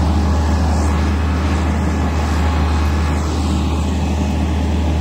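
An engine running steadily with a constant low drone and mechanical noise, no change in pitch or speed.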